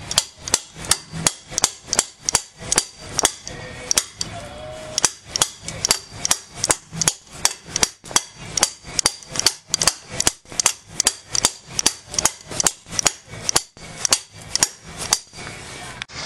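Hammer blows on the end of a CV axle shaft, driving it out through the front wheel hub: a steady run of sharp metallic strikes, about three a second, each ringing briefly. The shaft is stuck against something and is not yet going through.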